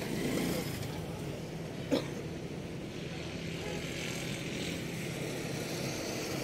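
Steady background hum of a running engine or motor, with one sharp click about two seconds in.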